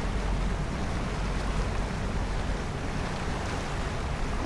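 Sailboat motoring on a calm sea: a steady engine rumble under the rushing of water along the hull and wind on the microphone.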